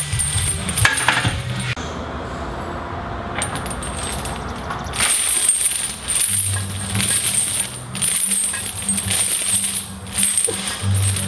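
Heavy steel chains hanging from a barbell clink and jangle as the bar is bench-pressed, in clusters with short breaks. Background music plays underneath.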